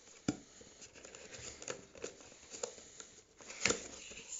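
Small cardboard box being opened by hand: the lid and paper flaps are lifted, with a sharp snap just after the start, scattered rustles and light scrapes, and a louder click near the end.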